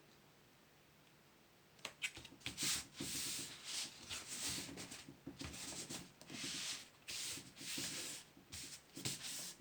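Hands rubbing and smoothing a sheet of black cardboard down onto a glued cardboard base: a run of dry, papery rubbing strokes, about two a second, starting about two seconds in.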